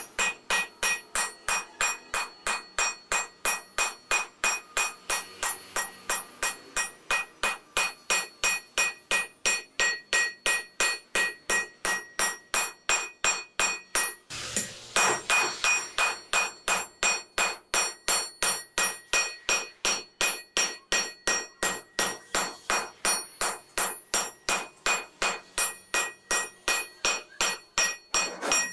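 Hammer blows on a red-hot steel cleaver blank on an anvil, forging the blade: steady, regular metallic strikes about three a second, each with a ringing clang, with a brief break about halfway through.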